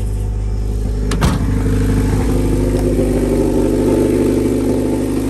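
Honda Civic engine running steadily, with a sharp click about a second in.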